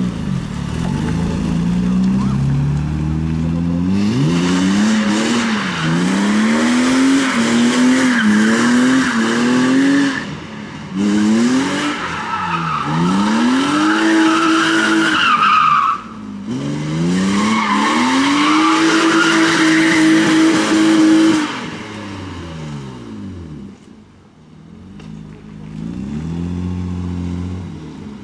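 BMW E30 doing a burnout and drifting, its rear tyres squealing in three long spells while the engine is revved and held high. Near the end the squeal stops and the revs fall back to a lower engine note.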